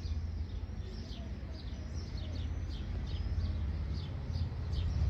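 Small birds chirping repeatedly in short falling chirps, about two a second, over a steady low rumble.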